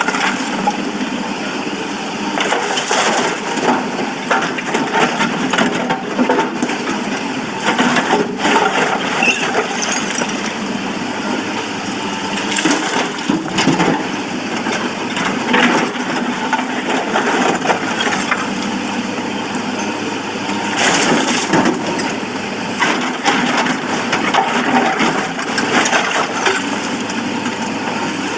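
SANY SY225C hydraulic excavator working broken stone: the steel bucket scrapes and digs through rock, with frequent hard knocks and clattering of stones over the diesel engine running under load.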